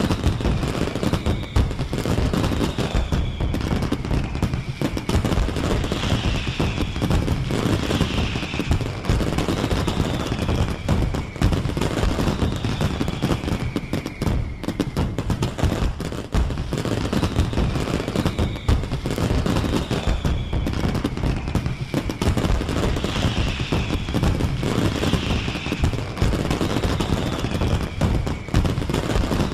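Fireworks going off in a dense, continuous barrage: rapid bangs and crackling, with whistles that fall in pitch every second or two.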